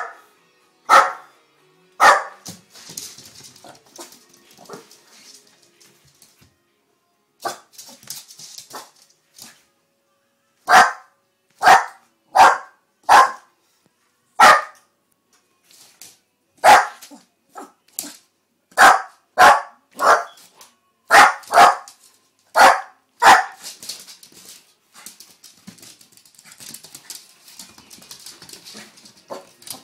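A small terrier barking over and over, in short single barks at uneven intervals. Some come in quick runs of two or three, and there are pauses of a few seconds between runs.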